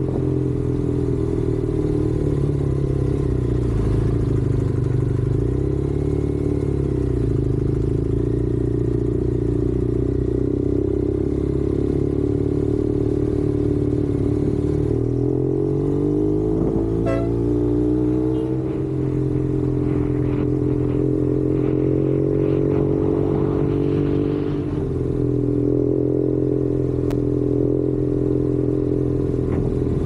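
Motorcycle engine running while riding, its pitch mostly steady. About halfway through the pitch falls and then climbs again as the bike slows and picks up speed, with a shorter dip near the end.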